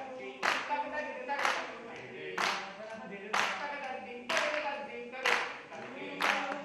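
Hand claps in a steady beat, about one a second, each ringing briefly in a reverberant hall, over sustained singing voices.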